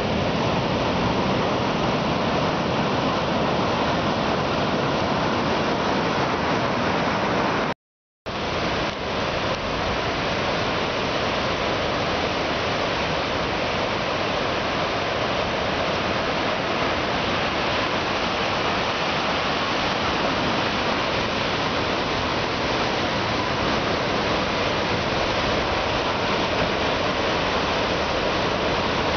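Ocean surf breaking heavily on the shore, a steady rush of white-water. The sound cuts out completely for about half a second around eight seconds in, then carries on unchanged.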